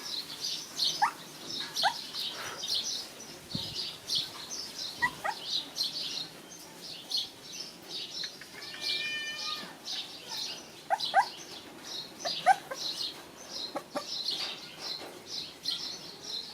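Continuous high chirping of birds, with several short rising whimpers from puppies scattered through.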